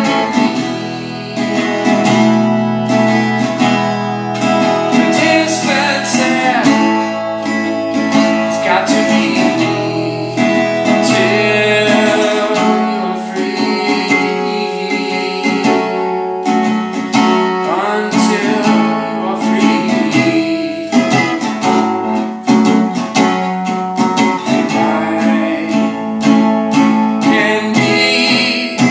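Metal-bodied resonator guitar played solo, with rapid picked and strummed notes and chords that ring on.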